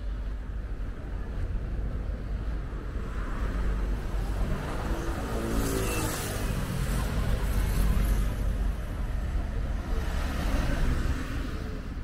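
A motor vehicle drives past, loudest about halfway through, its engine note falling in pitch as it goes by, over a steady low rumble.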